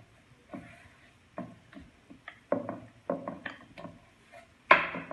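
Scattered light knocks and taps of stuffed paratha dough being pressed flat by hand on a round rolling board, with one sharper knock near the end.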